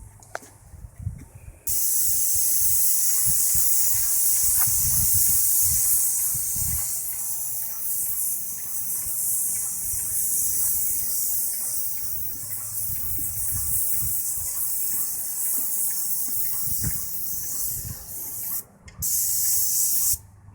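Airless paint sprayer with a 308 fine-finish tip spraying paint, a steady loud hiss that starts about two seconds in. It stops briefly near the end, starts again, then cuts off.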